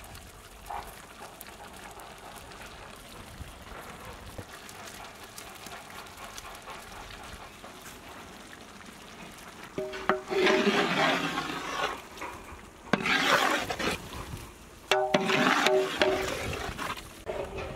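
Thick prawn curry sloshing in a large metal pot as a wooden spoon stirs it, in three loud bouts over the second half. Before that there is only a low, steady background.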